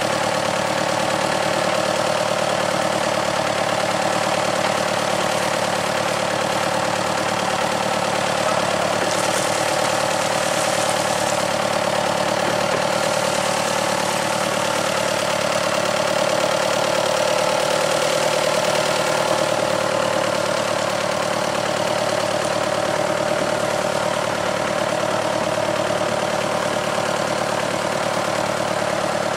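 Boat engine idling steadily at an even pitch.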